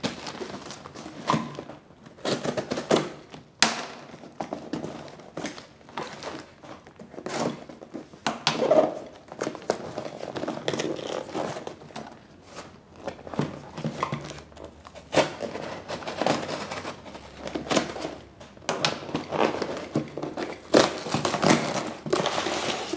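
A parcel being opened: plastic packaging crinkling as it is cut with a folding knife, then a cardboard box being torn open, with irregular rustles, crackles and knocks.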